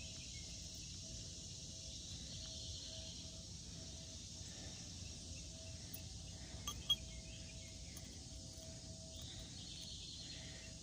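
Faint outdoor ambience: a steady high hiss with a faint repeating tone under it, and two light clicks close together about seven seconds in.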